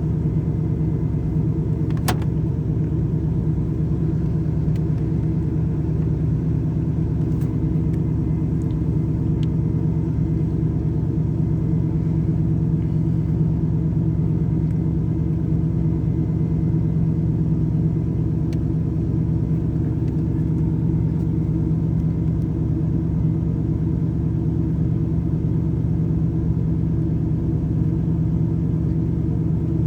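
Chevrolet Camaro IROC-Z V8 idling steadily: the rough idle that leads to stalling once the engine is warm. A faint click about two seconds in.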